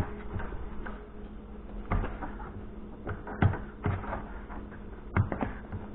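Hands kneading dough in a plastic bowl, with scattered knocks and clicks as the bowl is handled on the counter, over a steady low hum.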